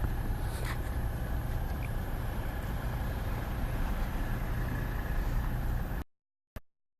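Steady low rumble of a bus engine running, cutting off abruptly about six seconds in, followed by a single click.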